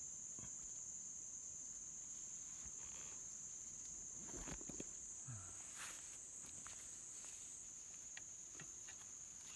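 Steady, high-pitched drone of insects in the riverside vegetation, made of two constant high tones. A few soft knocks and clicks of handling sound over it, most of them about halfway through.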